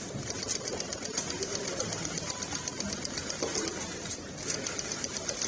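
Many camera shutters clicking in rapid runs over the low murmur of a room.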